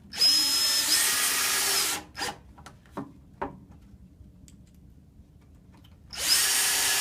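Power drill driving screws into the chair's legs in two runs of about two seconds each, the motor whining steadily, with a few light clicks of handling between them.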